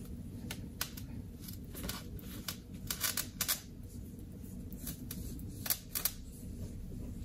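Microfiber cloth wiping across a laptop screen: a series of short, irregular swishes, loudest about three seconds in and again around six seconds.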